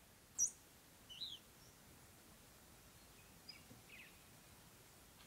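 Faint outdoor ambience with a few short, high bird chirps: a sharp one about half a second in, a quick falling pair about a second in, and fainter ones between three and a half and four seconds.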